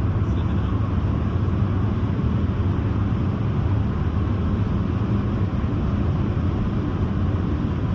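Steady engine drone and tyre/road noise of a car cruising at a constant speed on a highway, heard from inside the cabin.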